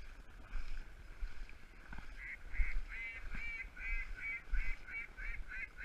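Goose honking: short, evenly spaced honks, about two to three a second, starting about two seconds in and running on.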